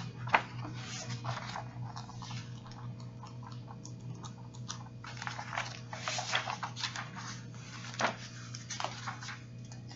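Paper pages of a Bible being leafed through: a string of light rustles and crinkles, with a sharper tick about a third of a second in and another near eight seconds. A steady low hum runs beneath.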